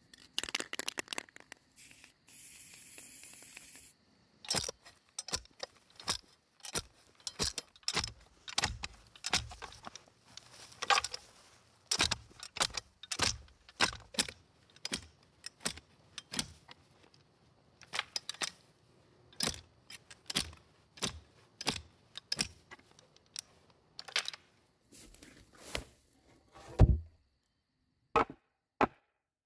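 A spray can rattled and then sprayed in a short hiss, followed by a clamshell post hole digger jabbing again and again into soil, with repeated chunking strikes and scrapes. Near the end come a few sharp knocks on wood as a wooden stake goes in.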